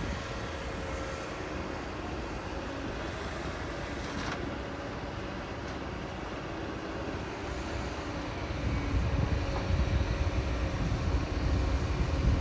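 Diesel engine of heavy construction machinery running steadily, getting louder in the low rumble about two-thirds of the way through.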